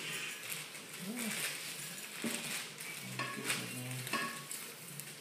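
Toasted, crushed eggshells being tipped from a metal frying pan into a glass jar: a light rattle with scattered clicks and clinks of shell and pan against the glass. A short low hum comes about three seconds in.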